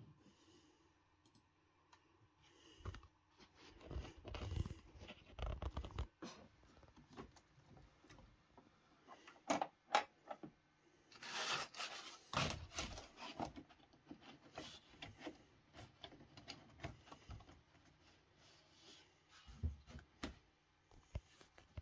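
Irregular scrapes, clicks and light knocks of hand work on metal parts, with a few sharp clicks just before halfway and a louder scraping stretch just after it.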